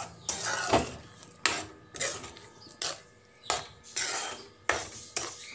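Steel spoon scraping and knocking against a metal kadai, about every half second, while stirring thick broken-wheat porridge in milk.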